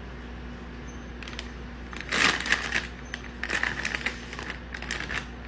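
Irregular crinkling and crunching during food preparation, starting about two seconds in and lasting about three seconds, over a steady low hum.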